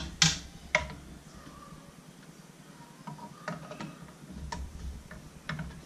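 A few sharp clicks and knocks near the start, then fainter scattered ticks, as a metal snake hook works inside a glass terrarium.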